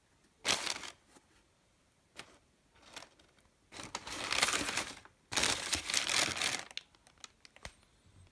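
Tissue wrapping paper in a shoe box crinkling and rustling as it is handled, in three bursts: a short one near the start and two longer ones past the middle. A few light taps come in between.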